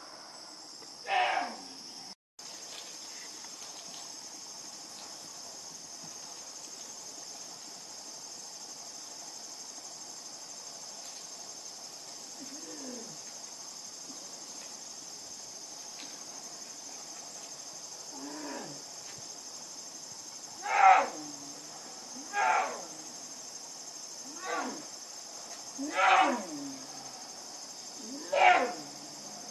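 Young black bear bellowing in short calls that drop in pitch: one about a second in, a couple of faint ones midway, then five in quick succession near the end. The calls are taken for the cub calling for its mother. Insects chirp steadily underneath.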